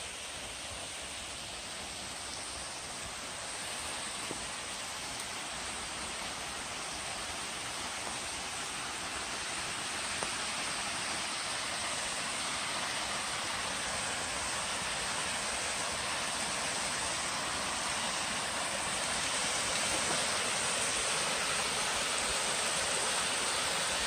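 Waterfall: a steady rush of falling water that grows gradually louder.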